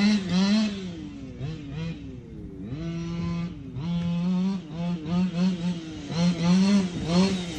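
Losi DBXL RC buggy's two-stroke gas engine with an aftermarket Losi tuned pipe, revving up and down as the throttle is worked, with a dip in revs about three seconds in.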